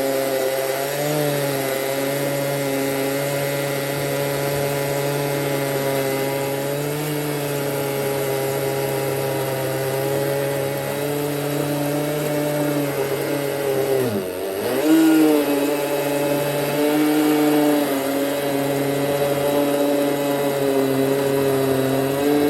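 Stihl MS 881 two-stroke chainsaw running at full throttle under load as it rips a thick board lengthwise on a chainsaw mill. Its pitch stays high and steady, then dips sharply about two-thirds of the way through before climbing back.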